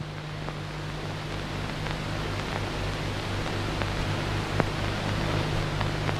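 Steady kitchen background noise: an even hiss over a low steady hum, with a few faint clicks, the loudest about four and a half seconds in.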